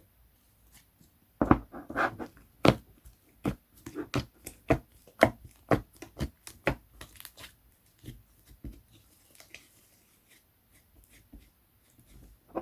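Slime being squished and poked by hand, giving a quick series of sharp pops and clicks for about five seconds, then fainter, lighter crackles.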